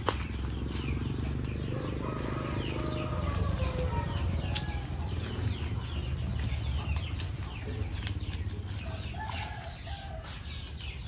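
Small birds calling in short, high chirps that fall in pitch, repeated every second or two, over a steady low background rumble.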